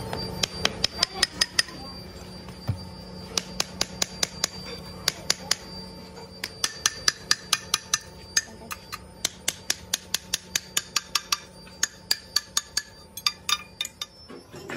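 Hammer striking freshly cast cylinder sleeves to knock off the moulding sand: quick runs of sharp metallic clinks, several a second, with short pauses, each strike leaving a brief ringing tone.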